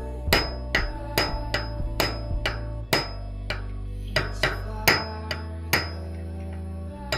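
Repeated sharp metal-on-metal strikes, about two a second, many with a brief high ring: the loose-ball bearing cup being knocked out of a bicycle's aluminium front hub by striking it with the axle.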